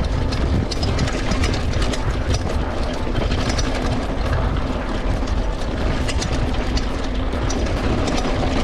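Mountain bike rolling fast downhill over loose rocky gravel: a heavy wind rumble on the camera microphone, with the tyres crunching over stones and the bike rattling in many short clicks.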